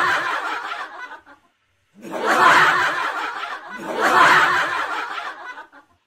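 Laughter in pulsing bursts. One fades out in the first second, then after a brief cut to silence two more bursts follow, about two seconds apart.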